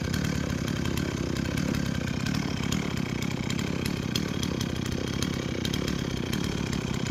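A gasoline chainsaw running steadily at an even engine speed.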